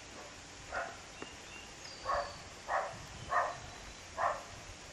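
A dog barking: five short barks at uneven spacing, with a faint high bird chirp among them.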